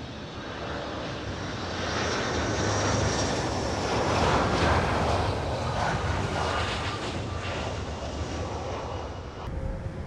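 Jet engines of a Delta Boeing 757 passing close overhead on final approach with its landing gear down: a steady roar with a faint high whine on top, swelling to its loudest about halfway through and then easing off. The sound cuts off abruptly just before the end.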